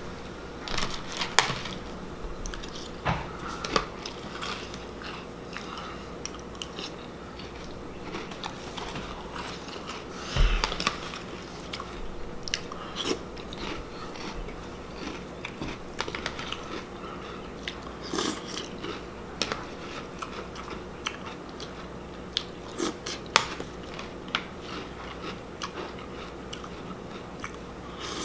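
A person eating a bowl of Honey Nut Cheerios close to the microphone: crunchy chewing with irregular crackles and clicks of spoon and bowl, and a louder clatter about ten seconds in.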